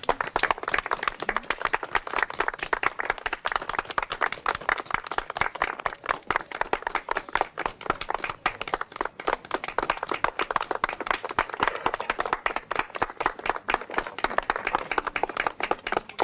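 Applause: a group of people clapping, dense and unbroken throughout.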